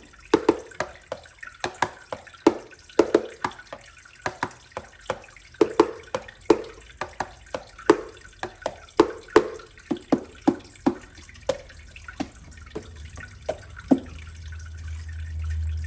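Water dripping: single drops falling one after another in an uneven rhythm, about two or three plops a second, that stop near the end. A low hum comes up as the drips stop.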